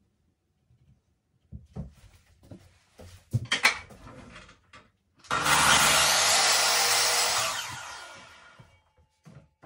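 Makita LS1018LN mitre saw cutting a strip of 9mm MDF: the motor starts about five seconds in, runs loudly and steadily for about two seconds, then dies away. A few knocks and clatters come before it as the strip is handled at the saw.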